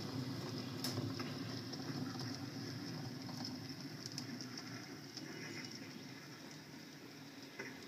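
On30 model train running along the layout's track: a steady low rumble of the small motor and wheels on rail, with scattered light clicks, slowly getting quieter.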